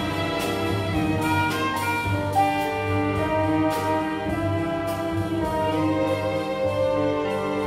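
Solo saxophone playing a slow, sustained melody over a string orchestra's accompaniment.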